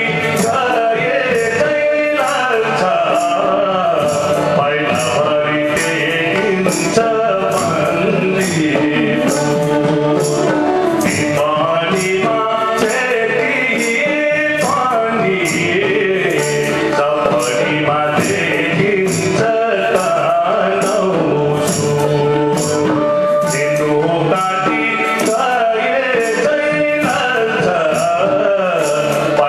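Male voice singing a Nepali folk song over a harmonium, with a jingling percussion beat keeping steady time.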